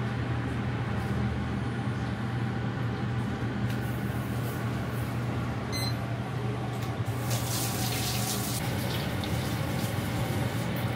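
Karaage chicken pieces frying in a commercial deep fryer: the oil sizzles and bubbles continuously, growing louder for about a second some seven seconds in as fresh pieces go into the oil. A steady low hum runs underneath.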